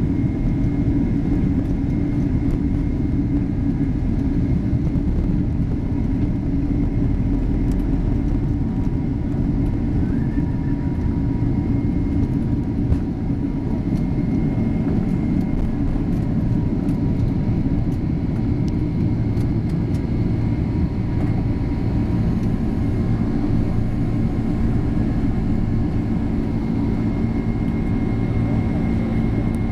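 Boeing 767-300ER's twin turbofan engines at takeoff thrust, heard inside the cabin over the wing: a loud steady drone with a high fan tone, over the rumble and light knocks of the takeoff roll. About two-thirds of the way in the rumble evens out into a smoother drone as the jet lifts off and climbs.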